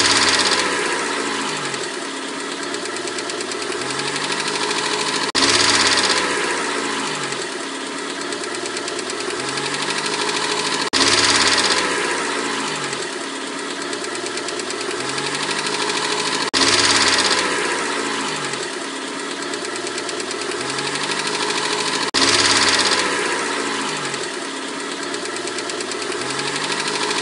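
Mercedes-Benz 190E 2.0's four-cylinder engine idling cold with its hydraulic lifters (tappets) clattering: the lifters are faulty, at least one of them sticking, and the noise comes only when the engine is cold. The same stretch of about five and a half seconds repeats, with a sudden jump in level at each join.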